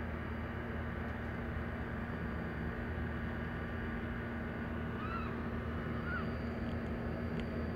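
Two short, high mews from a newborn kitten, about a second apart, over a steady background hum.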